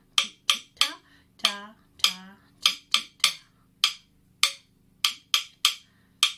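Two wooden drumsticks struck together in a short rhythm pattern repeated over and over at andante, a walking-speed tempo. The sharp wooden clicks come about two a second, some in quick groups of three.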